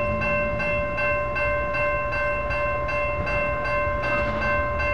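NEG electronic crossing bell ringing at about three strokes a second, each stroke a bright metallic tone, while the railroad crossing gates lower. The ringing is the crossing's warning of an approaching train.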